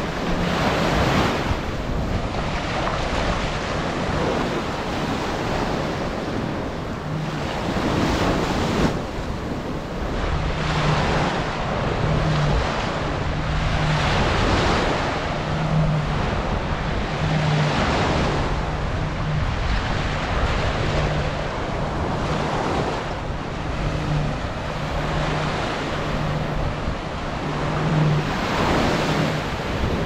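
Small surf breaking and washing up the sand, swelling and easing every couple of seconds, with wind buffeting the microphone. A low hum comes and goes underneath.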